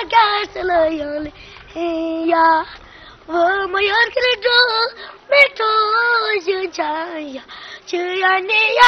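A young boy singing solo without accompaniment, in short held phrases with brief pauses between them.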